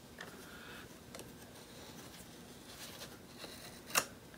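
Faint handling of a small metal screw clamp being fitted onto a wooden chair-frame rail, small clicks and rubs of metal on wood, with one sharp click about four seconds in.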